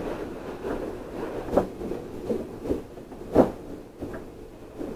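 Scattered soft knocks and thumps inside a stopped train car, the loudest a little over three seconds in, with no motor or rolling noise.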